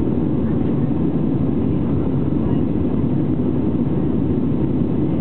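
Steady cabin noise of an Airbus A320-family airliner climbing after takeoff: a deep, even rumble of the jet engines and the airflow past the fuselage, heard from a window seat over the wing.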